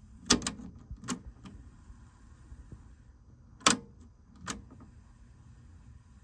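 Sharp mechanical clicks of a TEAC W-350 cassette deck's transport buttons and tape mechanism being worked: several clicks in the first second or so, then two more after a pause. No tape playback is heard; the deck gives no sound output.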